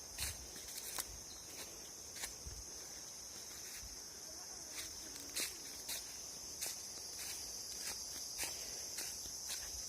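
Steady high-pitched insect drone, with irregular footsteps crunching along a path.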